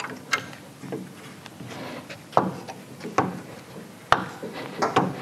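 A wrench working the bolts on a motorcycle's foot-peg mount: a handful of irregular metal clicks and knocks as the tool is fitted and turned, the sharpest a little past four seconds in.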